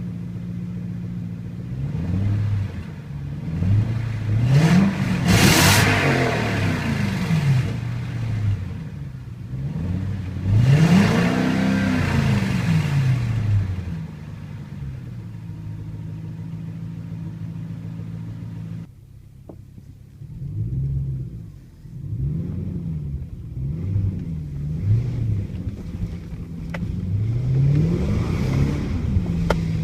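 Lexus GS430's 4.3-litre V8 idling and being revved repeatedly in place, each rev rising and falling back to idle; the two biggest come about five and eleven seconds in, followed by shorter blips. The exhaust note is one the owner calls bad.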